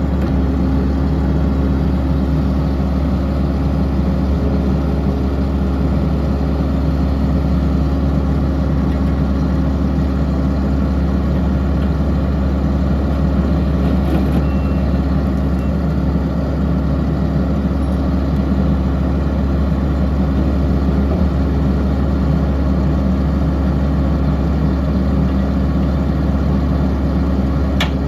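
Kubota SVL75-2 skid steer's diesel engine running steadily at an even speed, a deep, constant engine drone with no revving.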